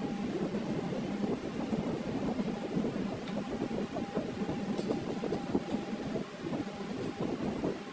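Steady mechanical hum and drone of running workshop machinery, with a constant low tone and a fainter higher one.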